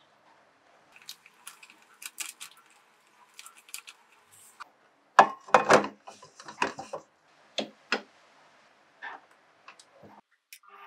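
Clinks and knocks of a stainless steel mixing bowl being handled and set onto a stand mixer's base, loudest about five seconds in, followed by scattered clicks as the mixer head is lowered and set in place. Lighter clicks and rustles come earlier from the bowl and spoon.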